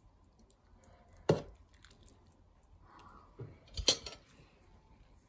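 Metal ladle clinking against a stainless-steel Saladmaster pot and serving bowls while soup is ladled out: a few sharp knocks, one about a second in and two or three close together near four seconds.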